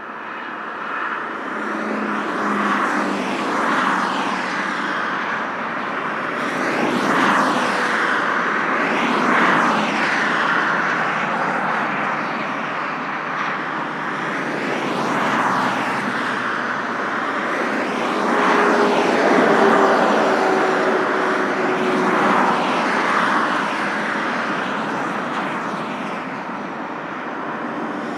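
Motorway traffic: a continuous rush of tyres and engines, with vehicles passing one after another, each swelling and fading every few seconds.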